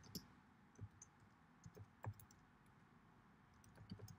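Faint computer keyboard typing: scattered single keystrokes with short pauses between them.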